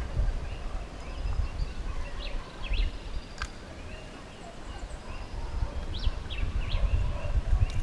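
Birds chirping in short calls, over a low, uneven rumble of wind on the microphone, with one sharp click about three and a half seconds in.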